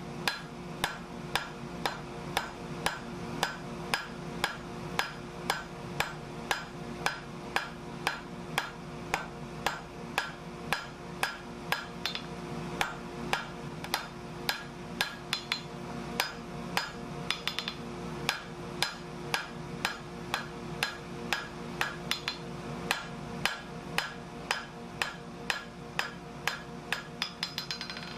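Hand hammer striking hot steel bar stock on an anvil in a steady rhythm of about two blows a second, drawing the metal out into a long thin stem. A steady hum runs underneath.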